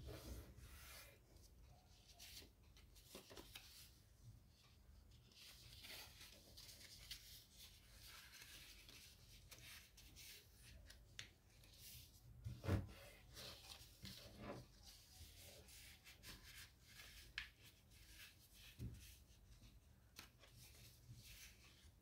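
Faint rustling and rubbing of origami paper being folded and creased flat by hand against a tabletop, with scattered soft taps; the loudest tap comes about 13 seconds in.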